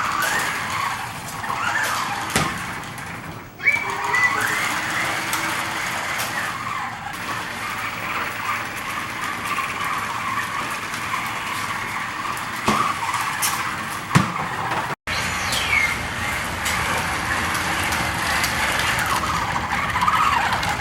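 Remote-control BB-8 toy droid rolling about, its drive motors whirring steadily.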